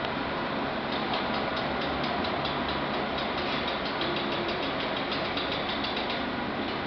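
Chair testing machine running with a steady mechanical drone and a rapid light ticking, several ticks a second, through the middle.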